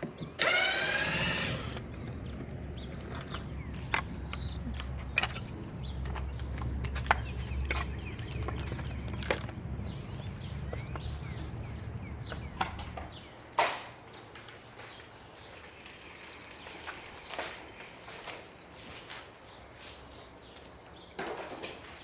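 Garage door opener motor starting with a brief rising whine, then running with a steady low hum and scattered clicks for about thirteen seconds before stopping, followed by a few faint clicks.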